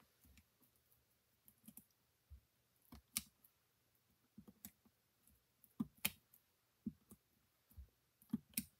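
Faint, scattered clicks and taps of a pen and small paper pieces being handled on a tabletop, with a few sharper clicks about three, six and eight and a half seconds in.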